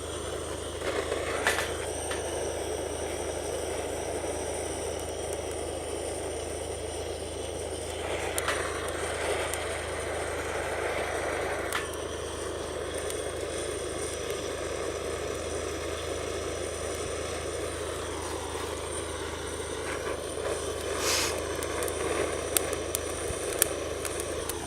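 Coconut-shell charcoal fire burning: a steady rushing sound with scattered crackles and an occasional sharper snap, over a low steady hum.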